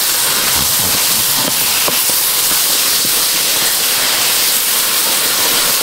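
Mashed ripe banana sizzling in hot ghee in an uruli: a loud, steady hiss with scattered small crackles and pops. It is the early stage of cooking the banana down until it turns dark.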